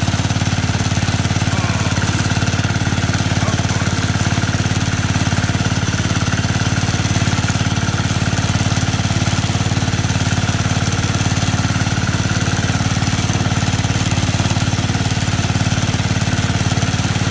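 A modified Massey Ferguson garden tractor's engine running steadily through its upright exhaust stack as the tractor drives along, an even low pulsing with no change in speed.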